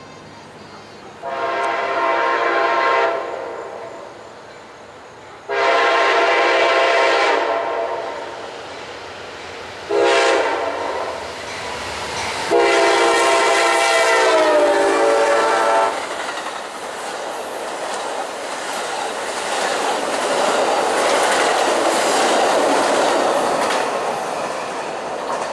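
Amtrak passenger train's locomotive horn sounding the grade-crossing signal: long, long, short, long, with the last blast dropping in pitch near its end as the locomotive nears. The train then passes at speed, the noise of its wheels and cars building and then fading.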